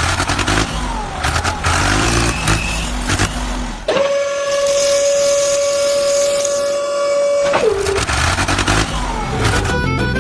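Vehicle motor sound: a noisy stretch with a short falling whine, then a steady held whine for about three and a half seconds that drops in pitch as it ends.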